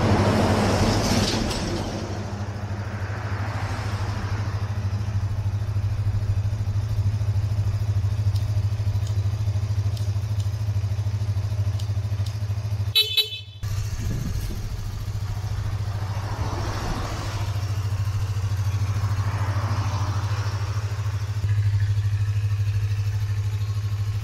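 Yamaha MT-25's parallel-twin engine idling steadily, with a short horn beep about halfway through; the idle gets a little louder near the end.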